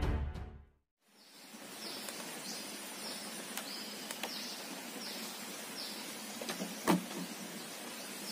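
Steady rural outdoor ambience with a high, falling chirp repeated about twice a second, and a single short knock about seven seconds in. Background music fades out in the first second.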